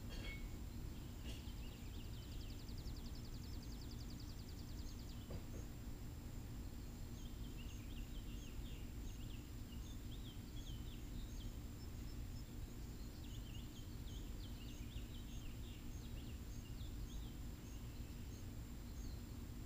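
Outdoor ambience: small birds chirping, with a rapid trill near the start and scattered chirps later, over a low steady rumble and a faint hum.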